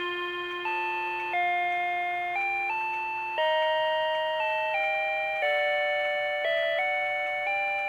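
Rhythm Watch "Week Time" melody alarm clock playing its electronic alarm tune: a slow two-part melody of chime-like notes, each note starting sharply and fading away.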